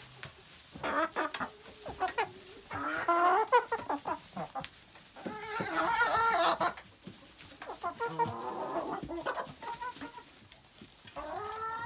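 Several hens clucking and squawking in repeated bursts while they feed on a pan of treats, their calls wavering up and down, with short clicks among them.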